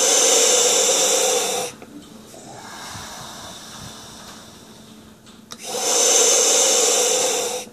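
Two deep breaths drawn through a gas-and-air demand-valve mouthpiece, each a loud hiss of about two seconds, at the start and again about six seconds in, with softer breathing between them.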